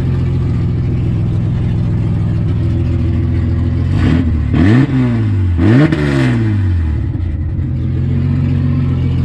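Ford AU Falcon drift car idling through its side-exit exhaust, then revved twice: two quick throttle blips about four and six seconds in, each rising and falling back to a steady idle.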